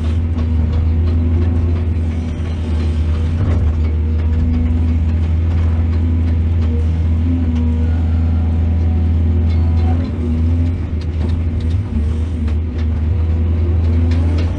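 Heavy diesel engine of a mining excavator running steadily with a deep drone, easing briefly about ten seconds in, with a few light knocks near the end.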